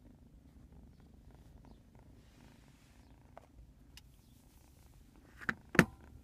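Kittens purring, a steady low fluttering rumble. Near the end come two sharp knocks in quick succession, the second much louder.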